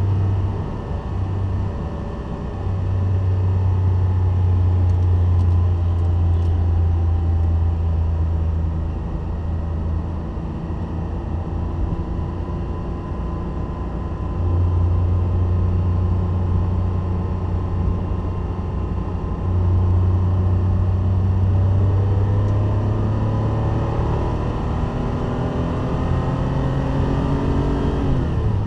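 Classic Porsche 911's air-cooled flat-six heard from inside the cabin while lapping a race track: a loud, low engine drone that eases off twice as the throttle is lifted and then comes back. Near the end the engine note climbs steadily, then drops suddenly at a gear change.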